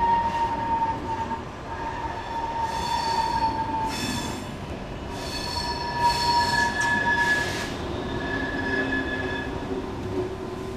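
Thalys high-speed trainset rolling past along a station platform, its wheels squealing on the rails in several steady high tones that fade and return over the rumble of the running gear.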